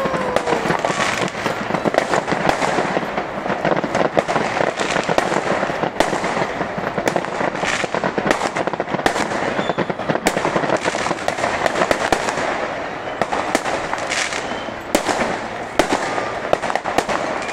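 Fireworks display going off without a break: dense crackling with many sharp bangs.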